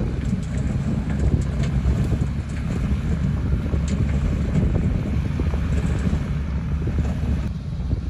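Diesel dump truck engine running under load as it tips a load of rock and soil off its raised bed and creeps forward, with scattered clatter of stones sliding off the bed that thins out near the end. Wind buffets the microphone.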